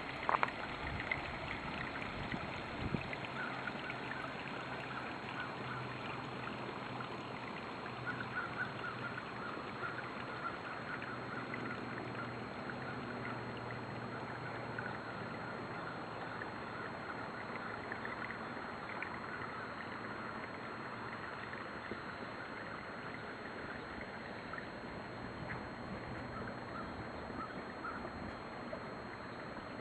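Quiet swamp ambience: a steady hiss with many faint, short high chirps from unseen wildlife, and a few knocks in the first few seconds.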